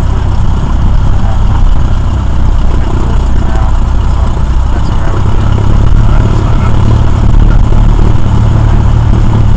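Cessna 172R's four-cylinder Lycoming engine and propeller running at low power, heard inside the cockpit as a loud, steady low drone that gets a little stronger about halfway through.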